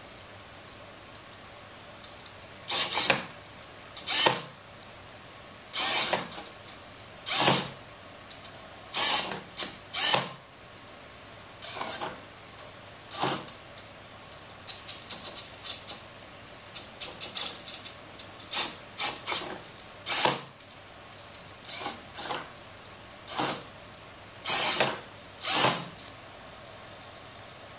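Small servo motors in a 3D-printed robotic hand whirring in short bursts as they drive the fingers, starting and stopping over and over, with a quick run of very short twitches in the middle.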